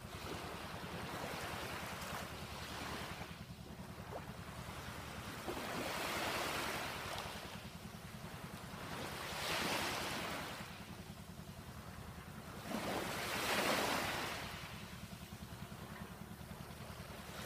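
Small waves of a calm sea washing onto the shore, swelling and dying away every three to four seconds, the loudest wash coming near the end, over a steady low rumble.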